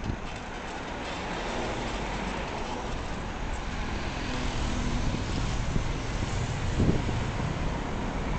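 Steady road noise from a moving vehicle heard through its dashcam: tyre, engine and wind noise that slowly grows louder, with a few low thumps near the end.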